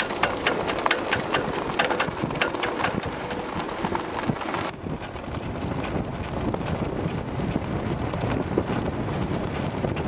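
Wind buffeting the microphone, a steady rushing noise. Through the first half a rapid run of sharp ticks or taps sounds over it, then stops abruptly.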